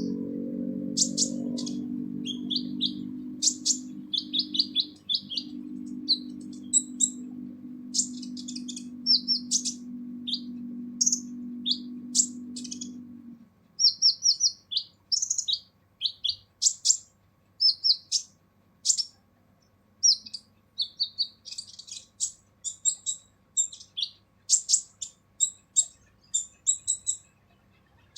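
Kolibri ninja sunbird giving harsh, rapid chattering calls: quick runs of sharp, high chirps and short trills. A low steady hum lies underneath for the first half and then stops.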